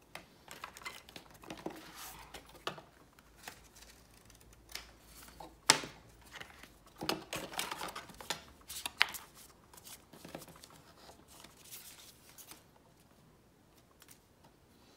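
Hands handling unboxing packaging: paper leaflets, sticker sheets and small plastic bags rustling, with scattered sharp clicks and taps as items are picked up and set down on a wooden table. The sharpest click comes about six seconds in, and the handling dies down a couple of seconds before the end.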